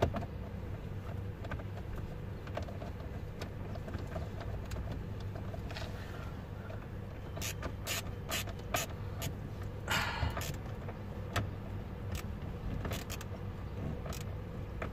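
Scattered sharp clicks and knocks of plastic parts being handled under a car's dashboard, with a short scraping rustle about ten seconds in, over a steady low hum.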